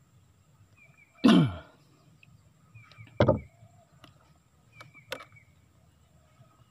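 Two loud plunks of a wooden stick struck down into the water beside a small boat, about two seconds apart, each ending in a low bloop that drops in pitch. A few faint knocks follow.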